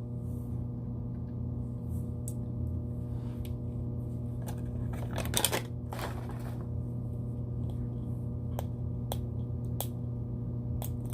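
Plastic toy packaging being handled: a brief rustle about five seconds in and a few scattered sharp clicks later on, over a steady electrical hum.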